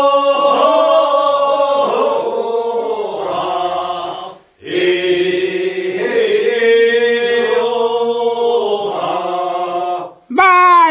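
Voices singing the drawn-out refrain of a Korean rice-paddy weeding song, the first weeding, in two long sung phrases with a short break between them. A single voice comes back in near the end to start the next verse.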